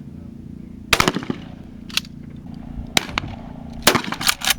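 12-gauge shotgun shots on a trap range: a series of sharp bangs at uneven spacing, the loudest about a second in and several more close together near the end.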